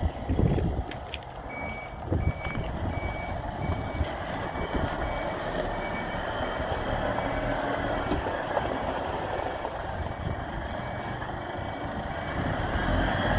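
Reversing alarm beeping at about two beeps a second over the steady running of a Scania P310 CNG garbage truck's engine; the beeping starts a second or two in and stops near the end.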